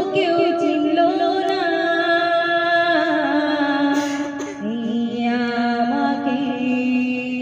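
A woman singing a slow melody into a handheld microphone, with long held notes that slide and step between pitches.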